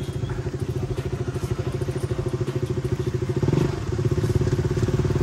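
Motorcycle engine running with a fast, even beat, a brief louder moment about three and a half seconds in, then running a little louder.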